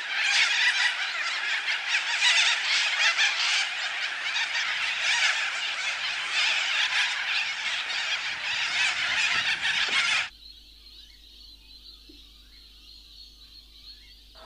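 A dense, chattering chorus of animal calls that stops abruptly about ten seconds in, leaving only a faint steady hum.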